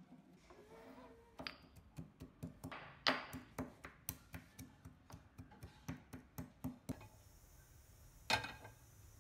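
Pestle pounding garlic and ginger in a small mortar, sharp strikes about three a second for five or six seconds. Then a single loud clank of a pan set down on a gas stove's grate, over a faint steady hiss.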